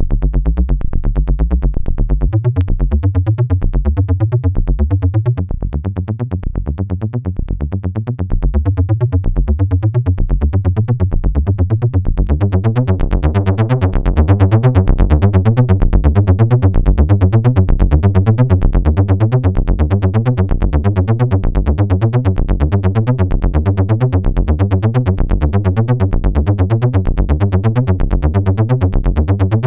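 Behringer System 100 analog modular synthesizer playing a fast, repeating mono bass line. It drops briefly quieter about six seconds in, and from about twelve seconds on the filter opens and the notes turn brighter.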